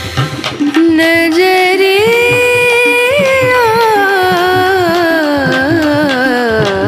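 Indian-style background music: one long melodic line that rises about a second in, holds, then slides slowly downward over a steady drum beat.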